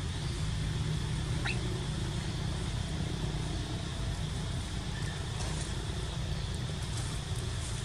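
Steady low outdoor background rumble with a faint even hiss above it, and one short rising chirp about a second and a half in.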